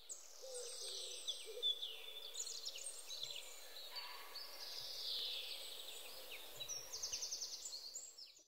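Birdsong from several birds, short chirps and whistled phrases overlapping, with a rapid trill near the end.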